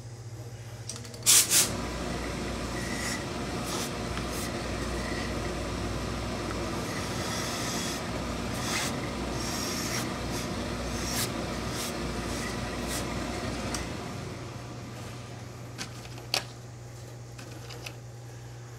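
Hose-fed industrial steam iron being set down with two sharp clicks, then pressed and slid back and forth over wool suit cloth: a steady rubbing hiss with a low rumble that eases off about fourteen seconds in.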